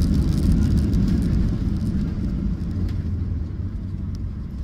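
Cabin noise of a Ryanair Boeing 737 rolling out on the runway just after landing: a steady low rumble of engines and wheels that fades gradually over the last couple of seconds as the jet slows, with a few faint rattles.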